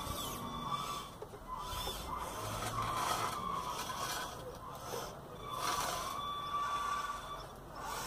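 Hydraulic RC model wheel loader at work: its electric motors and hydraulic pump whine, the pitch gliding up and down in spells of a second or two, with brief quieter dips between them.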